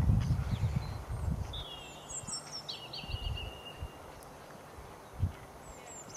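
Small birds chirping, with several short high calls and falling trills a couple of seconds in. Beneath them is a low rumble that dies away over the first second or so, and there is a single dull thud near the end.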